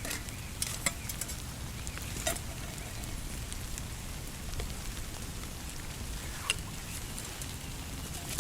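Campfire crackling, with a few sharp pops scattered over a steady low rumble.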